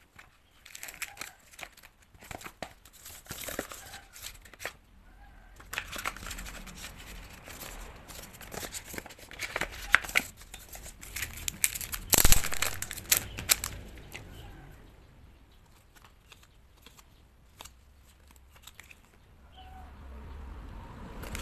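Plastic packaging and wrapping crinkling and tearing as it is handled, in irregular bursts of crackles and clicks; the loudest tear comes about halfway through, then the handling quietens.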